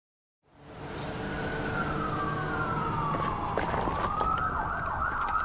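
An emergency-vehicle siren sound effect over a low engine rumble. After a brief silence it fades in; the siren tone slides slowly down, then climbs back up and holds with a quick warble.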